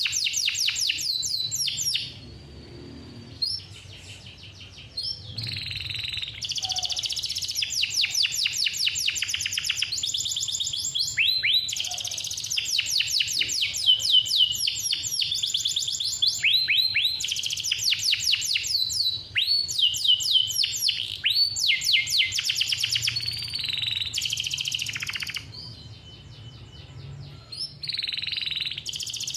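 Male canary singing long, fast rolling trills of rapidly repeated high notes, phrase after phrase, with a short lull a few seconds in and another near the end.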